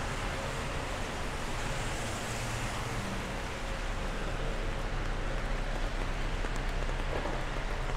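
Steady rain with a low, constant rumble of city traffic underneath.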